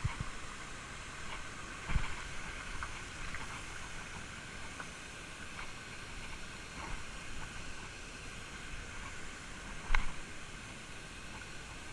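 Creek water running over a rocky streambed, a steady hiss, with a few knocks of footsteps on rock, about two seconds in and louder near the end.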